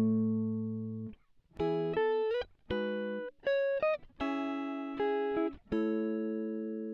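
Background music: a plucked guitar playing notes and chords that ring out and fade, with a few short slides up in pitch.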